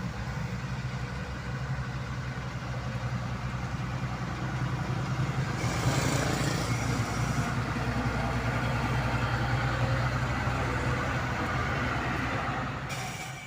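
Diesel engine of heavy road-paving machinery running steadily, growing a little louder about halfway through.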